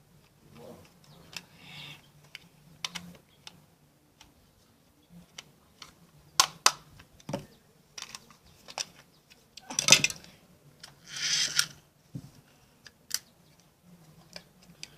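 Small plastic toy parts being handled and unscrewed: scattered clicks and taps of plastic and a screwdriver, with two short scraping rustles about two-thirds of the way through.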